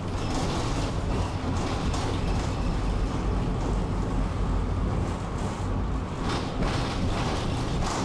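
Interior running noise of a tram in motion: a steady low rumble of wheels on rails and drive, with a few sharper clattering knocks about six seconds in.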